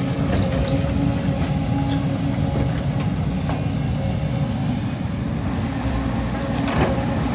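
Excavator's diesel engine running steadily with a low rumble and a steady hum, and a short knock near the end.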